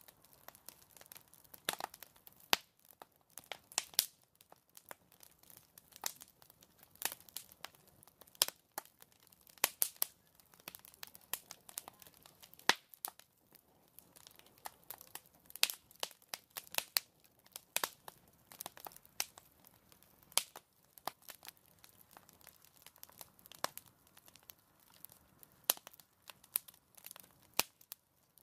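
Fire crackling: a continuous run of irregular sharp pops and snaps, several a second, over a faint low rush of burning.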